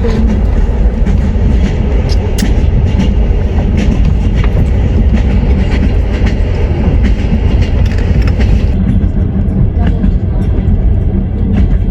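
Train wheels running over the rails on a moving train: a steady, heavy rumble with scattered clicks and knocks.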